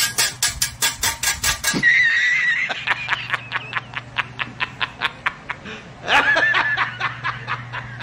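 Stifled laughter: rapid, even pulses of snickering, about six a second, broken by a high wavering squeal about two seconds in and again about six seconds in.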